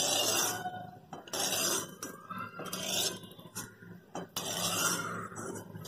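A slotted metal spoon scraping against the inside of a metal kadhai as fried peanuts are scooped out of the oil, in about four separate scraping strokes.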